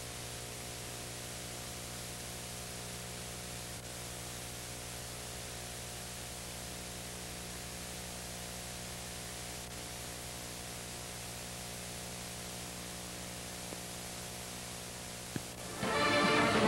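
Steady hiss with a low electrical mains hum, the bare noise of the recording with nothing else on it. Music, brass-led, comes in just before the end.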